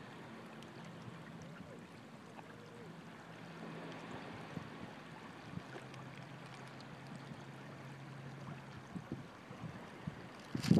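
Faint, gentle water trickling and lapping in a shallow rocky tide pool, with a faint low steady hum underneath that drops slightly in pitch about halfway through.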